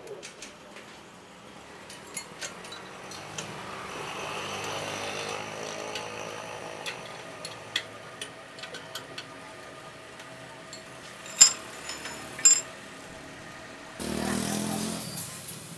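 A motor running steadily, with scattered clicks and two sharp knocks about two-thirds through, then a short burst of louder noise near the end.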